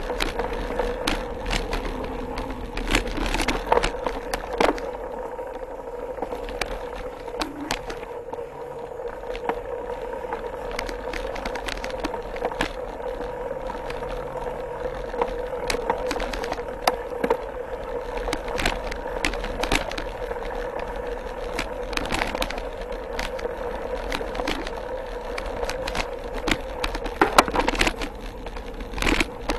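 Mountain bike ridden over a dirt trail, heard from a handlebar-mounted camera: tyres rolling on dirt, with the bike rattling and clicking over bumps and roots, and a steady hum underneath.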